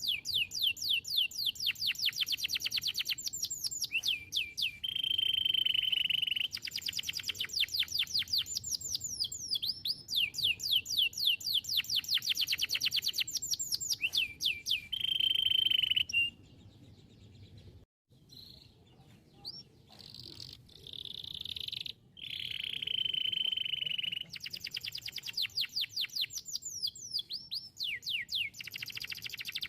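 Domestic canary singing: long runs of rapid, evenly repeated trill notes alternating with a held whistled note. The song drops to a quieter stretch with a brief break about two thirds of the way through, then the trills resume.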